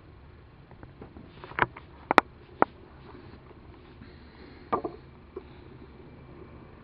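Handling noise from a hand-held camera: several sharp clicks and knocks, a quick run of them a couple of seconds in and another near the end, over a faint steady low hum.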